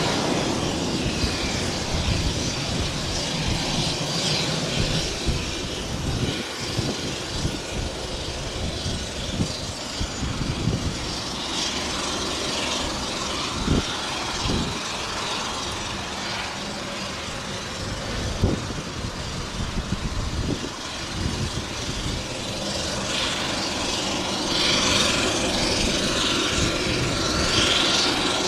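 Air Tractor AT-802F Fire Boss's Pratt & Whitney PT6A turboprop and propeller running at taxi power, a continuous turbine and propeller noise that grows louder over the last few seconds.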